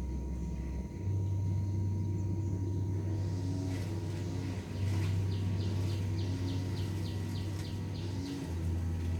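A steady low rumble, with a quick run of short high-pitched chirps, about three or four a second, starting about five seconds in.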